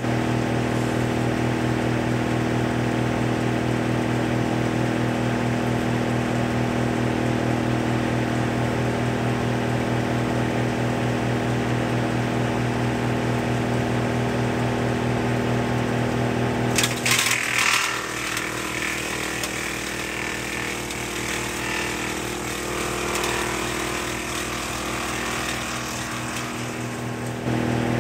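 Woodmaxx MX-8800 PTO wood chipper, driven by a John Deere 2032R's 32 hp diesel, running empty with a steady hum. About two-thirds of the way through, a branch is drawn into the knives with a loud burst of crackling and shredding. The steady note gives way to rougher running under load while the branch is chipped, and the steady hum returns near the end.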